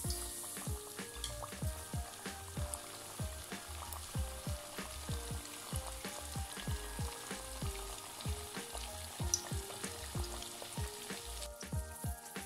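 A strip of youtiao dough deep-frying in hot oil, sizzling and bubbling. The sizzle is strongest right at the start as the dough goes into the oil. Background music plays throughout.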